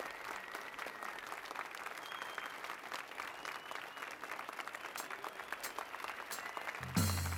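Audience applauding, a steady patter of many hands clapping. Music with low bass notes starts near the end.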